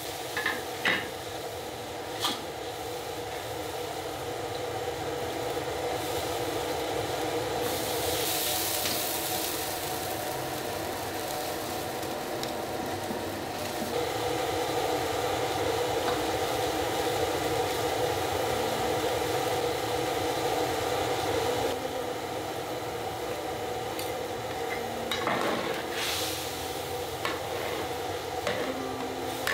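Metal spatula scraping and knocking in a large iron wok of hot chilli oil, with a steady sizzle and bubble from the wok. Two bursts of loud hissing, about 8 s in and near the end, as liquid hits the hot wok and steam rises.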